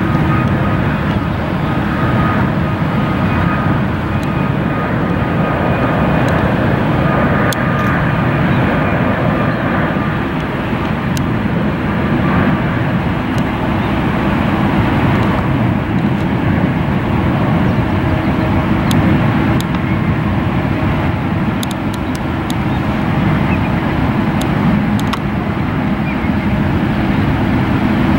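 Jet airliner engines running, a loud steady roar with a faint whine that fades out about halfway through.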